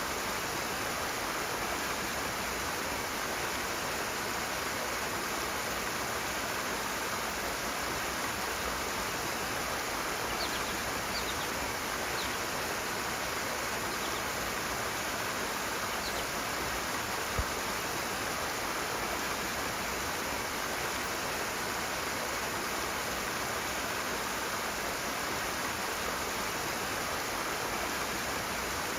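Rushing stream water, a steady even rush with no change in level. A few faint high chirps sound about halfway through, and there is a single low thump a little later.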